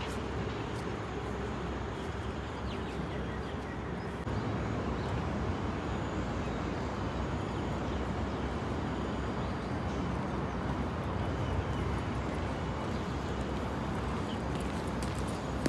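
Steady outdoor background noise, a low rumble with an even hiss over it, which gets a little louder about four seconds in.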